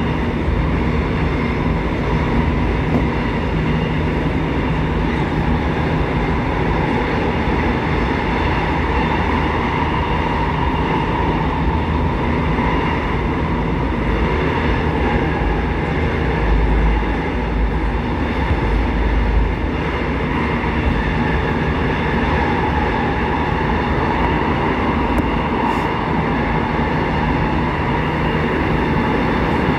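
Electric commuter train on the Gyeonggang Line running at a steady speed, heard from on board: continuous rolling rumble of wheels on rail with a steady motor whine, swelling briefly in the low end about halfway through.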